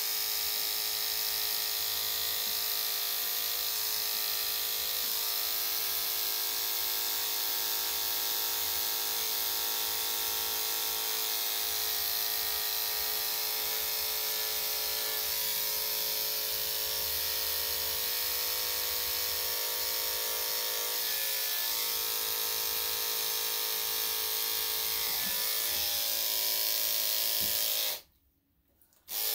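Corded electric dog clippers fitted with a #10 blade running in a steady buzzing hum as they shave the dog's face. The motor cuts off about a second before the end and starts again just before it stops.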